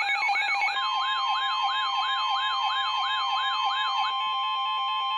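Electronic emergency-alert tones: a fast siren-like sweep, about three falling sweeps a second, layered over steady alarm tones, with another steady tone joining about a second in. The sweeps stop about four seconds in, leaving only the steady tones.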